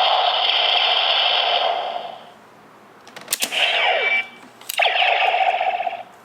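DX Neo Decade Driver toy belt playing electronic finisher sound effects through its small speaker. A long effect fades out about two seconds in; after a sharp click comes a falling sweep, then a second click and another sustained effect that cuts off near the end.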